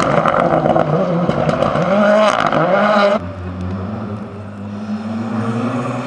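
Rally car engine revving hard, its pitch swinging up and down, with sharp cracks in between. About three seconds in it cuts off abruptly to a quieter rally car engine running steadily, its pitch slowly rising as the car approaches.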